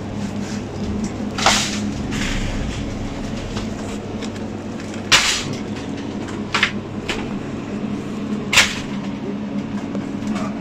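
Supermarket aisle ambience: a steady low machine hum with about five sharp knocks and clatters spread through it.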